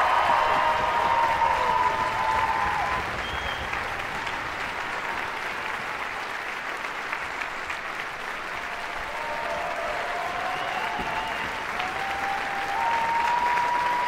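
Opera audience applauding steadily at a curtain call, with a few voices calling out over the clapping. It is loudest at the start, eases off, then swells again near the end.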